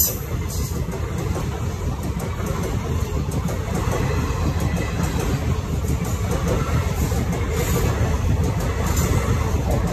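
Indian Railways passenger coaches rolling past close by: a steady rumble and rattle of wheels on the rails, growing a little louder toward the end.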